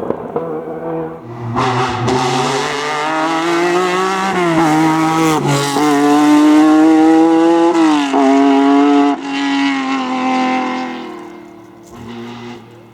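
Rally car engine accelerating hard through the gears, pitch climbing and then dropping at each of about three upshifts, growing loud as the car passes and then fading away.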